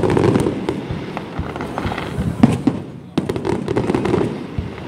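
Aerial fireworks bursting: a dense crackle of many small pops, with one sharp bang about halfway through and a fresh wave of crackling soon after.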